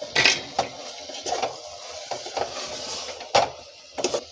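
A ladle stirring brinjal curry in a metal pot, scraping along the sides and clinking against the rim several times, the sharpest clinks near the start and about three and a half seconds in. The freshly ground spice powder is being mixed into the cooked brinjal.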